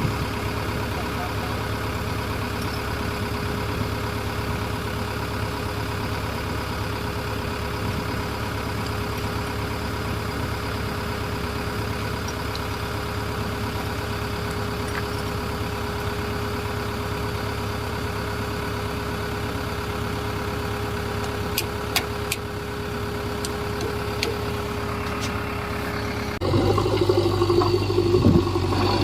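Diesel engine of heavy machinery running steadily at a constant speed. Near the end the sound changes abruptly to a louder engine.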